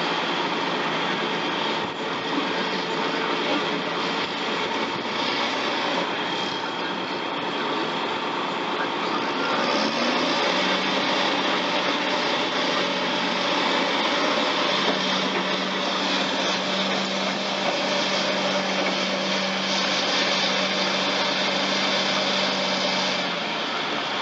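Caterpillar D6T bulldozer's diesel engine running under work while it moves through mud. The engine note steps up about ten seconds in and holds there until shortly before the end.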